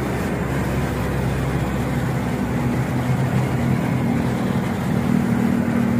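Military armoured vehicle's engine running as it drives along a street among other traffic: a steady low engine hum under a rushing noise.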